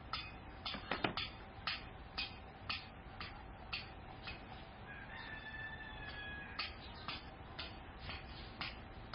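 A rooster crows once midway, a drawn-out call lasting about a second and a half, over a steady ticking about twice a second and a faint steady hum. A sharp knock, the loudest sound, comes about a second in.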